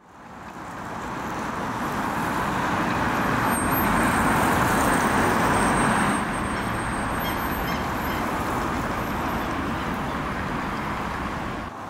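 City street traffic noise: a steady rush of passing cars that fades in at the start and drops slightly about six seconds in.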